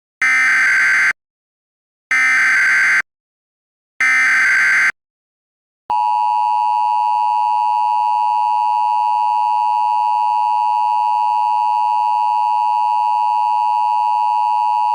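Emergency Alert System signal: three short bursts of SAME header data tones, each about a second long and two seconds apart, then the steady two-tone EAS attention signal starting about six seconds in.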